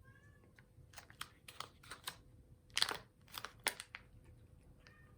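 A cat crunching a dry treat: a run of irregular sharp crunches starting about a second in and stopping just before four seconds.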